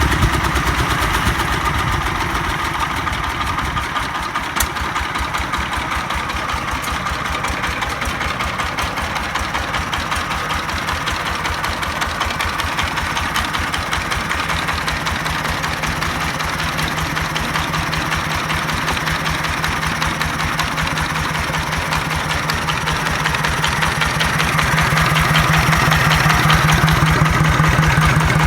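Jiangfa D30 diesel engine running steadily at idle with a fast, even firing pulse. About halfway through a steady low hum joins in, and it gets a little louder near the end.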